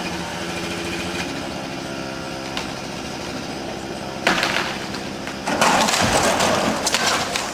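A small engine runs steadily. About four seconds in, wood cracks loudly, and a longer crash with a heavy thud follows: a tree or large limb coming down.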